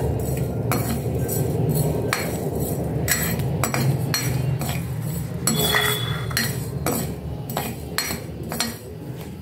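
A metal ladle scraping and clinking against a metal kadhai, about two strokes a second, as whole spices and dried red chillies are stirred and dry-roasted.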